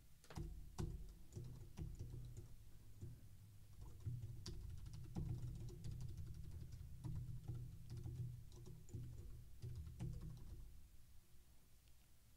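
Typing on a computer keyboard: faint, irregular keystroke clicks in short runs with brief pauses.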